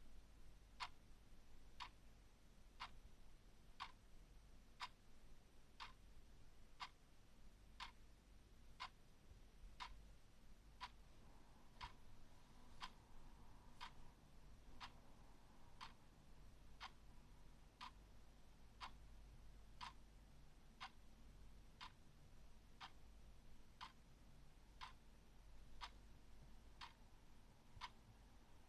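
Clock ticking steadily, one short sharp tick each second.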